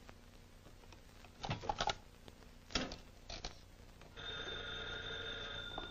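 A few short knocks and clatters, then a telephone bell starts ringing about four seconds in and keeps ringing steadily.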